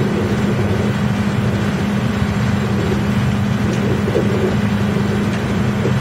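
Heavy machinery running steadily: an electric-driven drum wood chipper spinning, with a tracked grapple log loader working beside it. The sound is a loud, even machine hum with no sudden breaks.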